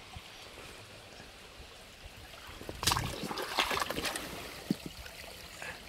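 Shallow river water trickling, with a brief run of splashes and knocks about three seconds in.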